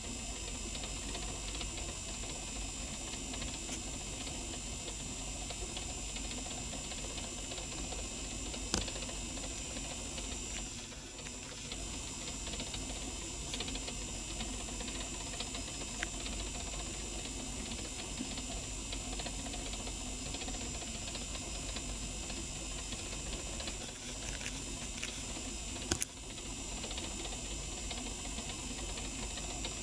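Small geared motor of a rotating display turntable running with a steady mechanical whir. A few sharp clicks break in, the loudest about a third of the way in and near the end.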